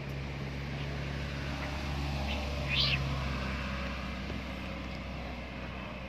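Steady low mechanical hum, engine-like, with a short high-pitched sound about three seconds in.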